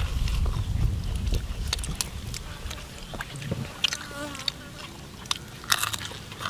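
People eating with their fingers: scattered lip smacks and sharp mouth clicks of chewing. A low wind rumble on the microphone at the start fades after about a second, and a short wavering buzz like a fly comes about four seconds in.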